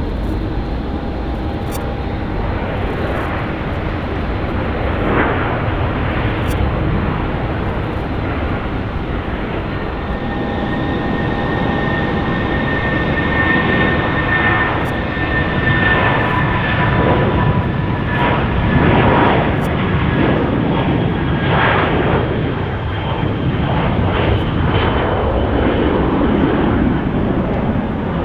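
Jet airliner's engines running loud and steady, with a thin whine that appears about ten seconds in and slowly falls in pitch.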